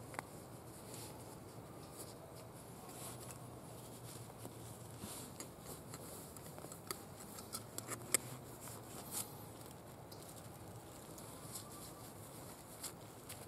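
Cloth drawstring bags rustling as they are handled and packed by hand, with scattered light clicks and taps, several close together between about five and nine seconds in.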